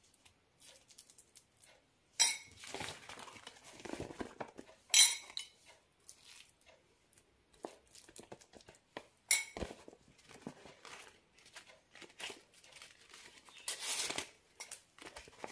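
A steel spoon clinking and scraping while soft tapioca batter is spread on a banana leaf, with a few sharp clinks about two, five and nine seconds in. Near the end the banana leaf crinkles as it is folded.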